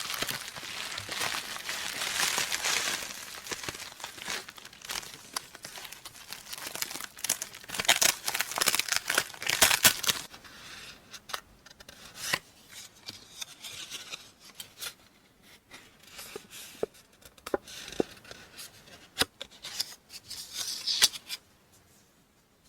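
Parcel being unpacked by hand: packaging tearing and crinkling, dense for the first ten seconds, then sparser rustles with scattered sharp clicks and taps of items being handled.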